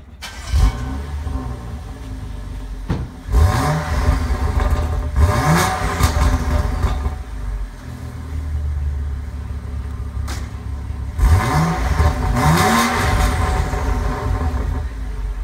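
BMW F30 335 xDrive's turbocharged straight-six through an Armytrix valvetronic exhaust, stationary. It flares loudly about half a second in and then idles. It is revved in sharp blips, a pair a few seconds in and another pair near the end, each one rising quickly in pitch and falling back to idle.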